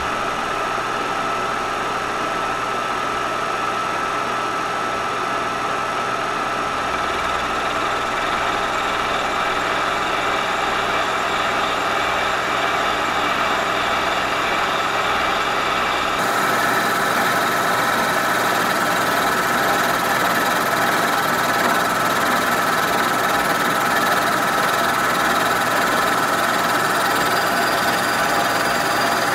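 Kearney & Trecker milling machine running on its horizontal spindle, a 3.5 inch high-speed-steel shell mill face-milling cast iron. It is a steady machine noise with a constant whine, and it gets louder and brighter about halfway through.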